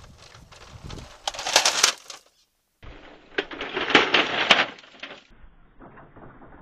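Noisy clatter with many sharp clicks and knocks, in short clips that cut off abruptly, with a brief silent gap partway through.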